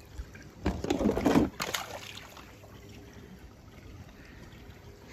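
Water splashing and sloshing in a clear plastic capsule, in a burst about a second in that lasts just over a second, followed by a faint steady hiss.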